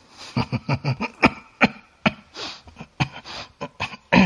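Soft laughter: a string of short chuckles in quick, irregular bursts.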